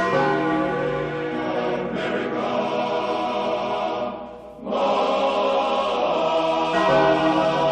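Choral music: voices singing long held chords that shift every second or two, with a brief dip about four and a half seconds in.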